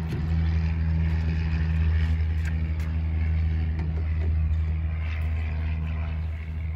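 A steady low engine drone that runs on without change.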